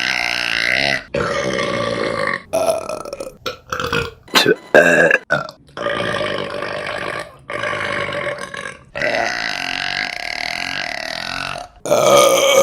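Women burping, about ten burps one after another. A cluster of short, sharp burps comes a few seconds in, then several long, drawn-out burps lasting a second or more each.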